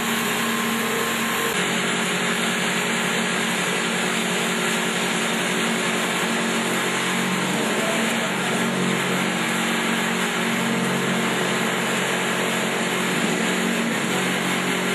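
Stainless-steel vibratory feeder running, a steady mechanical hum and hiss as coloured snack pellets shake down its tray; the hum changes slightly about a second and a half in.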